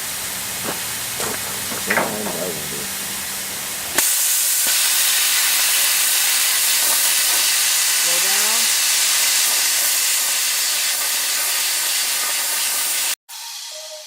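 Plasma torch of a CNC plasma table cutting quarter-inch steel plate: a steady, loud hiss that gets louder about four seconds in and cuts off sharply near the end.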